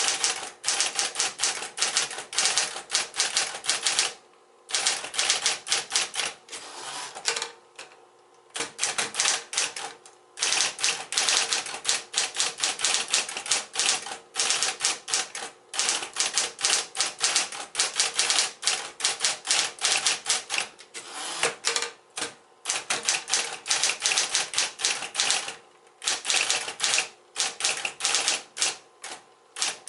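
Smith-Corona Electra 110 electric typewriter typing at a fast pace: rapid runs of sharp keystroke clacks broken by a few brief pauses, over a faint steady hum.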